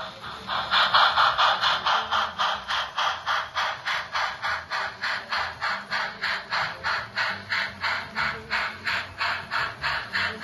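Model train coaches rolling along the track, their wheels clicking over the rail joints in a steady clickety rhythm of about three to four clicks a second, starting about half a second in.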